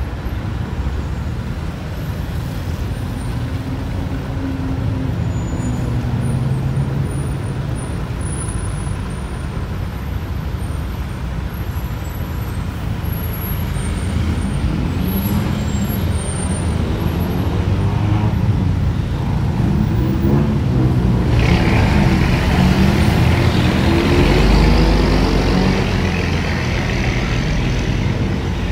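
Road traffic: motor vehicle engines running and passing, with a steady low rumble throughout. A louder vehicle passes close from about three-quarters of the way in.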